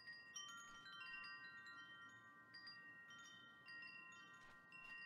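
Soft wind chimes ringing: many high, clear tones struck over and over and overlapping, each ringing on.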